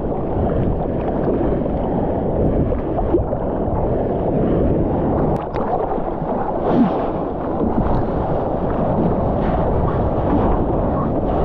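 Seawater rushing and splashing around a surfboard as a surfer paddles, picked up by a GoPro close to the water's surface, a steady wash of noise with wind on the microphone.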